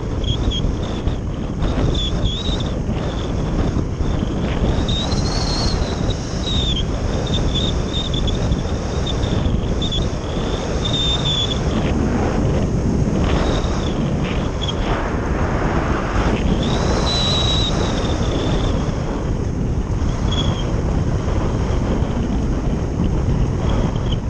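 Steady wind rushing over the onboard microphone of a Phase 6 radio-controlled slope glider in flight. A faint high whistle comes and goes, rising and falling in pitch.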